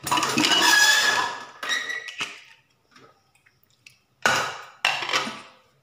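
Pressure cooker being opened once its pressure has dropped. The lid scrapes and rings against the rim for about a second and a half as it is worked free. Then two sharp metal clanks come near the end as the lid is handled.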